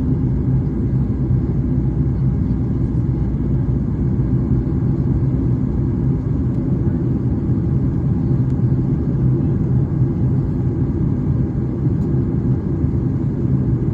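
Steady low rumble of a Boeing 737 MAX 8's CFM LEAP-1B turbofan engines during takeoff, holding an even level without rising or falling.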